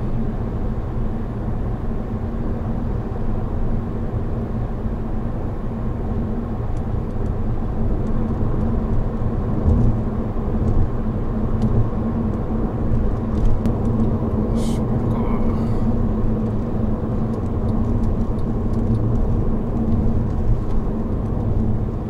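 Honda Odyssey RB3 minivan being driven: a steady low rumble of road and engine noise that holds even throughout.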